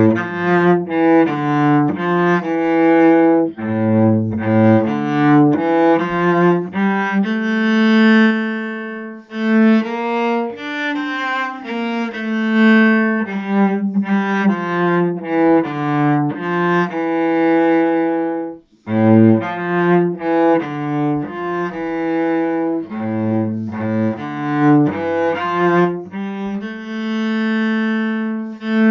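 Solo cello bowed, playing the cello part of a moderato gondola song in phrases of sustained notes, with one short break about two-thirds of the way through before the next phrase.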